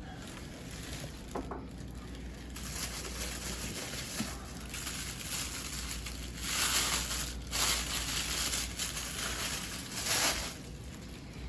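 Packaging crinkling and rustling as the wrapped statue parts are unpacked and handled, with louder crinkling bursts about two-thirds of the way through and again near the end.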